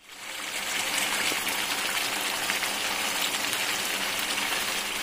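Thick mutton curry sizzling and bubbling in hot oil in a pan, a steady dense crackle, as the masala is fried down until the oil separates and rises to the top. The sound starts suddenly.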